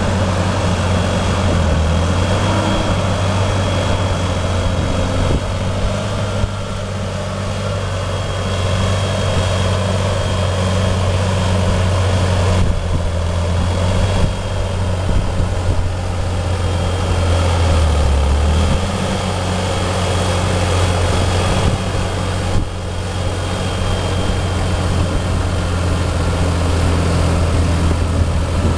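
Fendt 936 Vario tractor's six-cylinder diesel engine running steadily under load while pulling a plough through wet, muddy ground.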